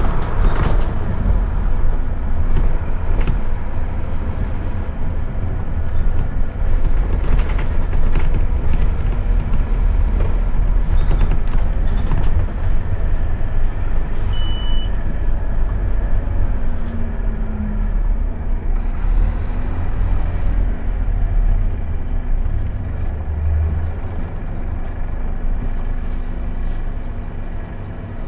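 Scania OmniLink single-deck bus heard from inside the passenger cabin on the move: diesel engine and road noise with a steady low rumble, and scattered rattles and clicks from the bodywork. Near the end it quietens as the bus slows for a red light.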